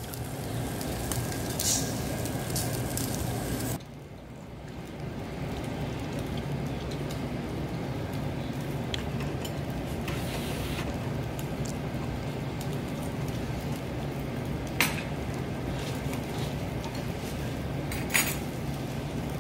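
Restaurant room noise: a steady low hum with scattered clinks of dishes and cutlery, and two sharp clinks near the end. In the first few seconds, beef sizzles on a charcoal table grill.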